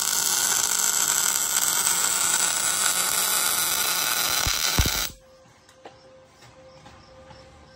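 MIG welding arc sizzling steadily as a joint on a steel rail frame is welded, stopping about five seconds in. A faint steady hum follows.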